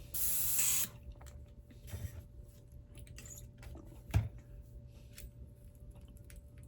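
An airbrush gives a short hiss of spray lasting under a second as it is being cleaned out, then small clicks and handling knocks, with one louder thump about four seconds in.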